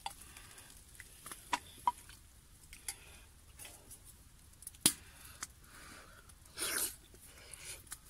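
Quiet small handling sounds at a camp table: scattered light clicks and taps, the sharpest about five seconds in, and a brief rustle near the end.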